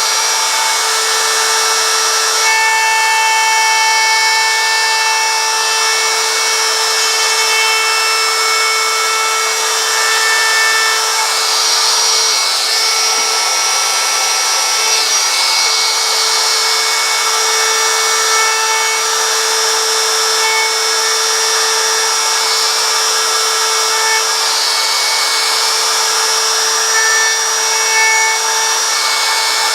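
Router running with a steady high-pitched whine, its bit cutting into a wooden sign as the letters are carved, the cutting hiss swelling and easing now and then.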